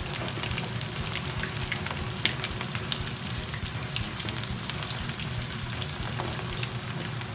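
Battered chicken karaage frying in shallow oil, heated to 160 °C, in a frying pan: a steady sizzle with scattered crackles and pops. The coating is already fairly crisp.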